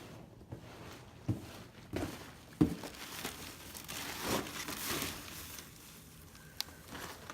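Packing material being rummaged through, crinkling and rustling, with a few sharp knocks of hard plastic pieces about a second, two seconds and two and a half seconds in.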